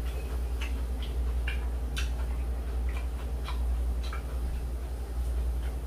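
Eating at a table grill: scattered light clicks and taps, about one or two a second and irregular, from chopsticks, tongs and dishes over the griddle, over a steady low hum.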